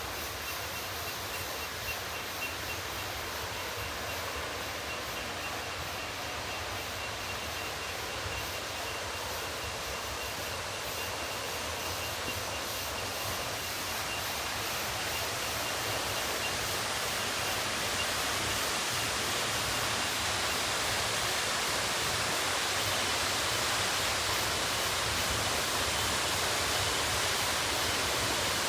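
Waterfall: a steady rush of falling water that grows gradually louder through the second half.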